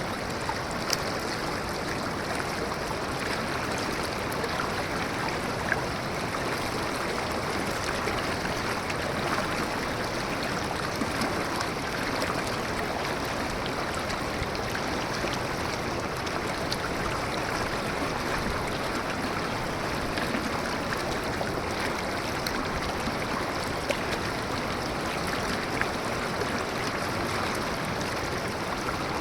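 Running water: a steady, even rush, with a few brief sharper splashes here and there.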